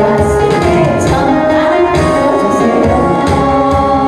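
Woman singing a Korean song into a microphone through a PA speaker, over a recorded backing track with a steady beat.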